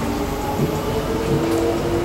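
Inside an SMRT C151B train car: the Fuji Electric IGBT-VVVF traction inverter and motors whine in several tones that shift in pitch as the train runs, over a steady rumble of wheels on rail.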